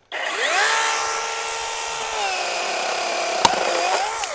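DEWALT 20V 8-inch cordless pruning chainsaw running as it cuts through a branch. The motor whines up to speed, drops in pitch about two seconds in as the chain bites into the wood, then rises again just before it stops. A single sharp crack comes about three and a half seconds in.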